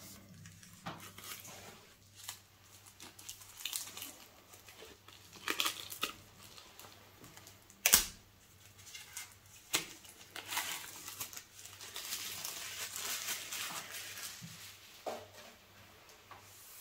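Thin plastic wrapping crinkling and tearing as gloved hands pull it off a desk lamp's round head, with a sharp knock about halfway through.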